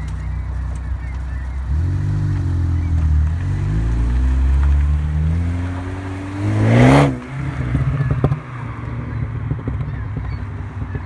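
A 2015 Ford Focus ST's turbocharged 2.0-litre four-cylinder, with a catted downpipe, muffler delete and Stratified tune, idles and is then revved. The revs rise and fall, and a sharp high rev comes about seven seconds in. As the revs drop back toward idle, the exhaust crackles and pops, the effect the Stratified tune is set up to give.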